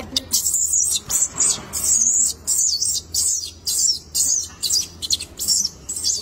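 Shrill, high-pitched animal calls repeated about three times a second, starting about half a second in.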